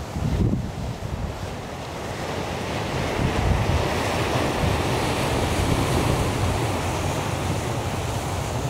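Wind buffeting the microphone over a steady wash of sea and surf, with the gusts growing stronger about three seconds in.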